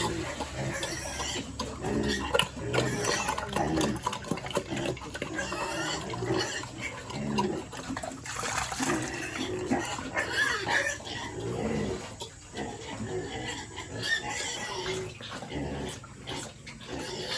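Pigs grunting, a run of short irregular calls, with scattered knocks between them.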